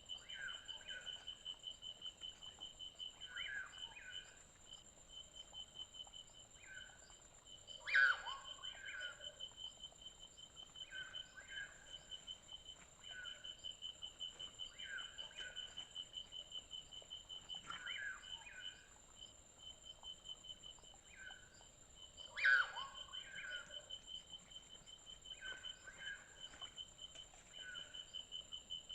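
Forest ambience: insects chirping in a steady, fast-pulsed trill with a higher steady hum above it. A bird repeats a short two-part call every couple of seconds, and twice a louder call falls steeply in pitch.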